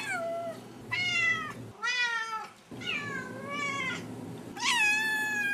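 Kittens mewing: a run of high, thin mews about once a second, several dropping in pitch at the end, the last one drawn out longer.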